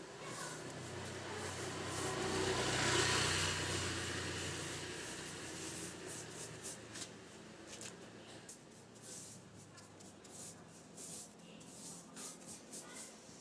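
Short, irregular rubbing strokes of a brush and rag working brown politur wood stain into teak-veneer plywood cabinet doors, from about six seconds in. Before that, the hum of a passing engine swells and fades; it is the loudest sound.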